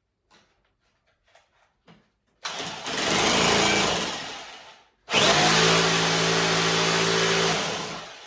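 SDS drill boring into the wall in two long runs, each winding down as the trigger is released, the second with a steady motor hum. A few light handling clicks come before the first run.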